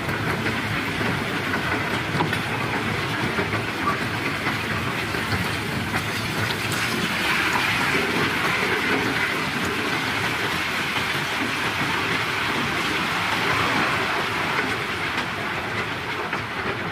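A steady, dense rattle of pebbles pouring out as a sand carrier unloads its cargo of stones.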